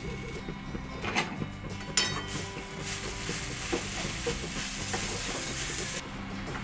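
A wooden spatula stirring and scraping mashed-potato filling in a steel kadai, with a couple of knocks of the spatula against the pan in the first two seconds. The filling sizzles with a steady frying hiss from about two seconds in until shortly before the end.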